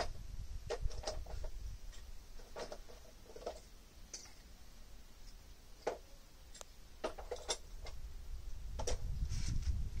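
A dozen or so faint, irregular clicks and taps, with a low rumble that is stronger near the start and the end.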